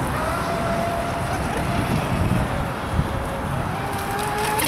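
Battery-powered RC speedboat's motor whining steadily out on the water, with a second whine rising in pitch near the end, over wind rumbling on the microphone.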